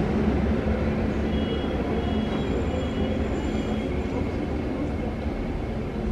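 Stadtbahn light-rail train rumbling away down the tunnel of an underground station, slowly fading. A thin high squeal rides over it from about one to four seconds in.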